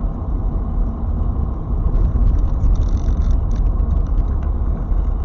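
A car's engine and tyre noise heard from inside the cabin while driving on a wet, slushy road: a steady low rumble with a few faint ticks.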